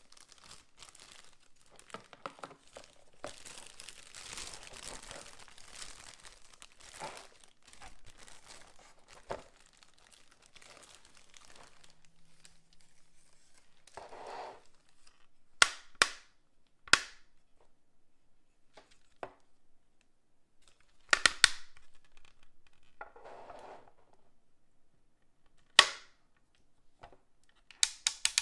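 Thin plastic bag crinkling and rustling as a Be@rbrick figure is drawn out of it, then sharp hard-plastic clicks from the figure's parts as it is handled: single clicks spaced a few seconds apart and a quick cluster near the end.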